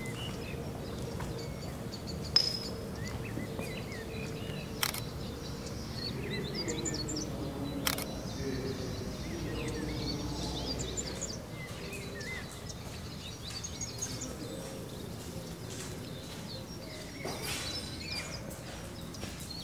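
Outdoor ambience with small birds chirping and twittering, and two sharp clicks about five and eight seconds in.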